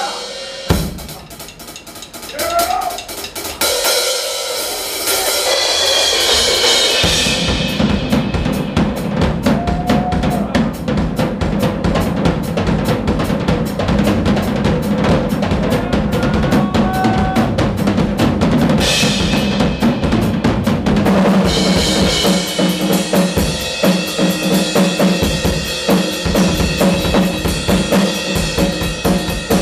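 Live drum solo on a ddrum rock kit: a cymbal crash and sparse hits in the first seconds, then from about seven seconds in a fast, steady stream of bass drum strokes under snare and tom hits and cymbals.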